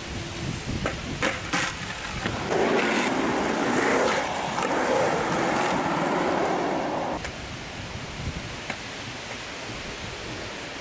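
Skateboard wheels rolling over rough concrete, loudest as the board passes close by and cutting off sharply about seven seconds in. A few knocks come before the roll, and there is a single click later over a steady hiss.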